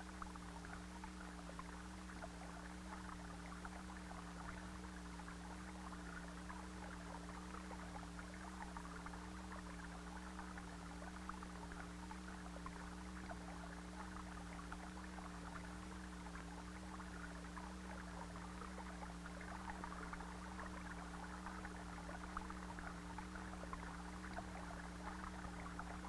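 Faint soundtrack background: a steady low hum whose pitch wavers slowly and evenly, over a fine crackling hiss.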